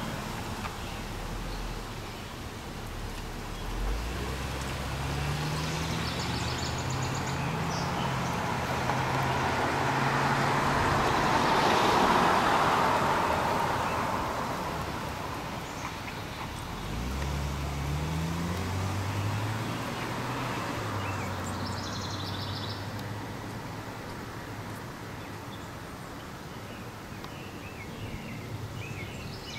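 Road traffic: a passing vehicle's noise swells to a peak near the middle and fades away, and twice an engine climbs in pitch in steps as it accelerates through the gears. Birds chirp briefly a few times.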